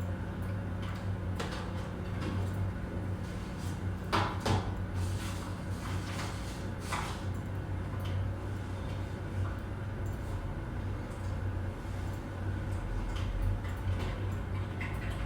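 Office room ambience: a steady low hum with scattered clicks and knocks, the loudest a pair of knocks about four seconds in and another about seven seconds in.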